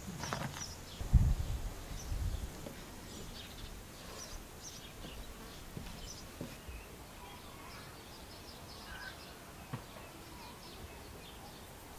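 Birds chirping faintly over quiet rural outdoor background, with a few dull low thumps in the first couple of seconds, the loudest about a second in.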